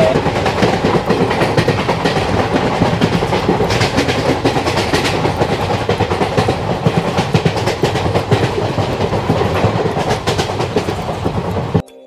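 Passenger train coach running at speed, heard from the open doorway: steady rushing of wind and running gear with irregular clattering of the wheels over rail joints. It cuts off abruptly near the end.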